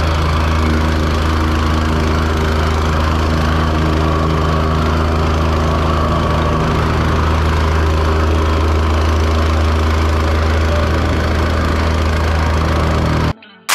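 Petrol-engined vibratory plate compactor running at steady speed as it is walked over loose paver bedding sand, packing it down before screeding. It cuts off suddenly right at the end.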